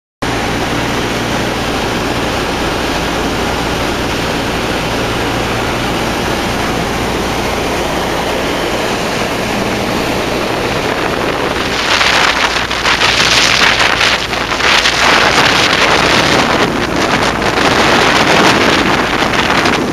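Steady drone of a Douglas C-47's radial piston engines heard from inside the aircraft in flight. From about 12 seconds in, loud rushing wind noise on the microphone rises over it.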